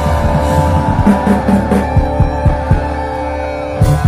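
Live rock band playing: electric guitars and bass holding steady notes while the drum kit lands a string of separate hits, with two more near the end.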